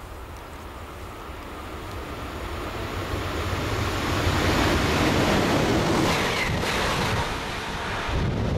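Passenger train passing close by: a rumble and rush of wheels on rail and moving air builds up, stays loud as the train goes past, and drops away sharply near the end as the last car clears.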